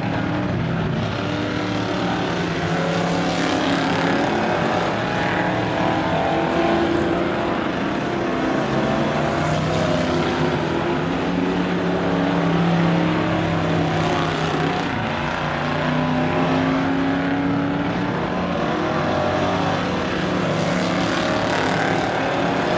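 A field of stock cars racing on a short oval track. Several engines run at once, their pitches rising and falling as the cars go round.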